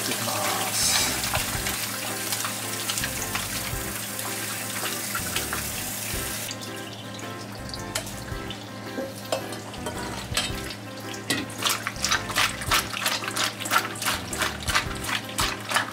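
Tap water running steadily into a stainless steel bowl of squid pieces, cutting off about six and a half seconds in. Toward the end, hands knead the squid with salt in the bowl in quick wet squelches, about three a second, rubbing off the slime.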